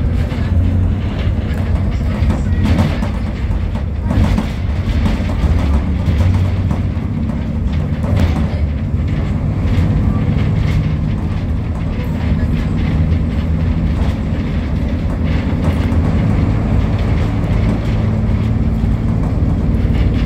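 Traffic heard from a moving vehicle: a steady, loud low rumble of engines and tyre noise from trucks and buses driving close alongside.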